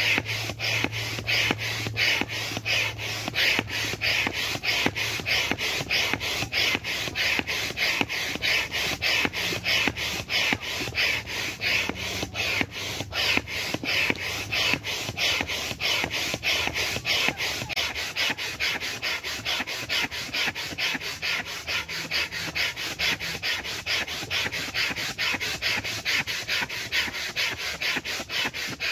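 Hand air pump inflating an inflatable kayak's side chamber: a quick, even rhythm of rasping air strokes that runs on without a break.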